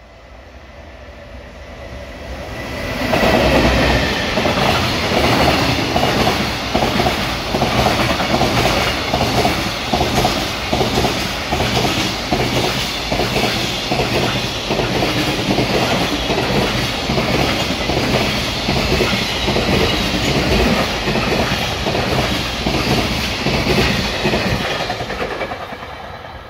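A long JR Freight container train passing close: the wheels of its flat wagons, loaded with JRF containers, clatter in a steady rhythm over the rail joints. The sound builds up over the first three seconds and fades away near the end as the train draws off.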